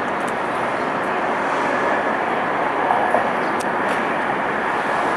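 Steady city street traffic noise: a continuous wash of passing vehicles.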